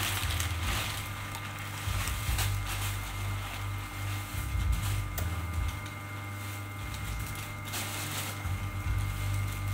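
An electric machine's motor running steadily with a low hum and faint whine, under scattered rustles and knocks from handling close to the microphone.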